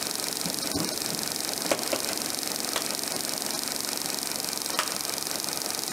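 Live-steam model locomotive with a vertical boiler, standing under steam and hissing steadily, with a few light clicks.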